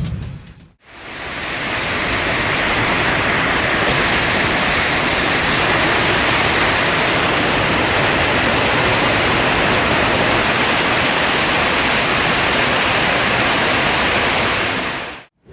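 Loud, steady rushing storm noise that fades in about a second in and cuts off abruptly near the end.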